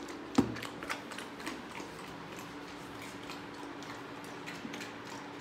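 Golden retriever puppy eating dry kibble from a stainless steel bowl: irregular crunching and small clicks of food against the metal, with one sharper knock about half a second in.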